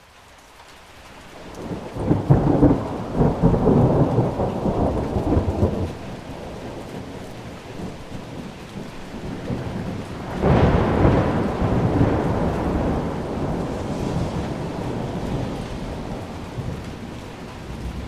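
A thunderstorm: steady rain, fading in at first, with two rolls of thunder, one about two seconds in lasting several seconds and a second breaking suddenly about ten seconds in and rumbling away slowly.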